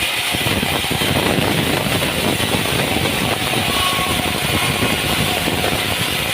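An engine running steadily with a rough, rapid chugging.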